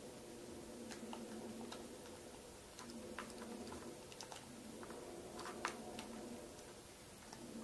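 Cat eating dry kibble from a plastic plate: irregular crisp crunches and clicks, over a steady low hum that fades out briefly a couple of times.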